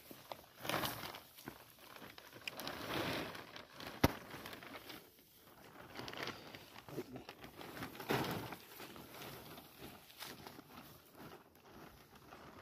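Plastic sack rustling and crinkling as handfuls of wilted radish greens are pushed down into it, being packed for fermenting into gundruk. There is one sharp click about four seconds in.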